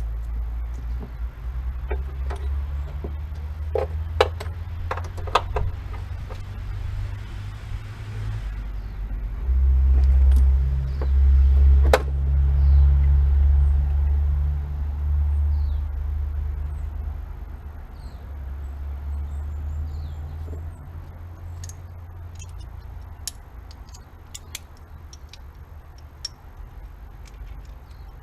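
Metal clicks and clinks from work on a clutch pedal assembly and cable, a few close together early on and one sharp one mid-way, over a low rumble that swells for several seconds in the middle.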